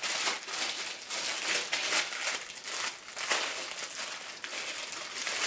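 Packaging crinkling and rustling in the hands as the next item from a subscription box is unwrapped: a run of irregular crackles.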